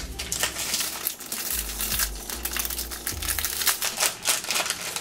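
Shiny purple foil wrapping crinkling and rustling in the hands as a small toy is unwrapped, in irregular crackles.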